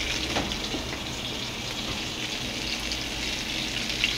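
Duck breast sizzling in a hot frying pan: a steady hiss with small crackles.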